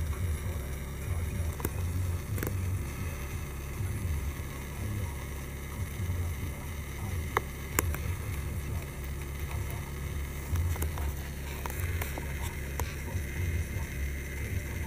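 A steady low rumble that swells and eases, with a few sharp clicks, the clearest two about half a second apart midway.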